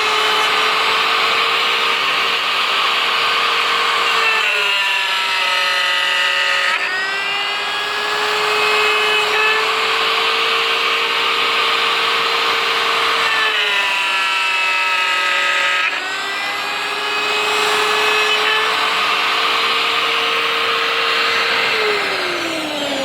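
Router spindle of a CNC box-joint machine whining at speed while milling wood. Its pitch drops twice for a couple of seconds as the cutter takes load and then recovers, and it slides down near the end.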